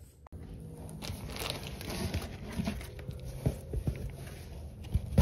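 Clothes and socks rustling as they are handled in a cardboard box, with a few light knocks and taps from the box and the phone being moved about.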